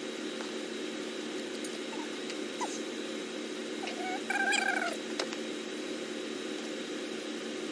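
Shoe boxes and sneakers being handled against a steady mechanical hum: a few light clicks and taps, and about four seconds in a brief high squeak that falls slightly in pitch.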